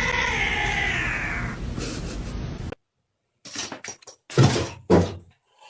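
A cat meowing, one long drawn-out meow that falls slightly in pitch, over a steady low hum. After it cuts off, a few short knocks and rustles follow.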